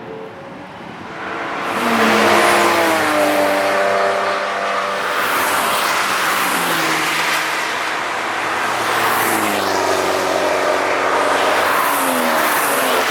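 Cars passing at speed one after another, engines rising and falling in pitch as each goes by, starting after a short lull.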